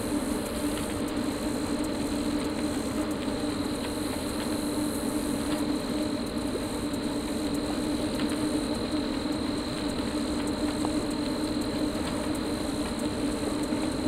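A steady machine-like hum with a faint, thin high whine over it, holding an even level throughout.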